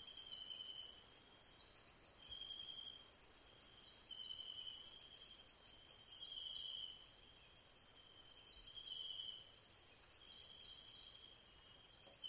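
Insect chorus: a steady high, finely pulsing trill, with a second, lower insect chirp repeating in short bursts every second or two.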